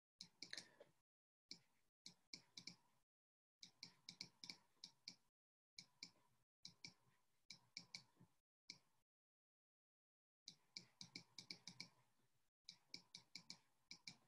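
Faint, irregular clicks and taps of a stylus tip on a tablet as a line of text is handwritten, coming a few at a time with short silent gaps.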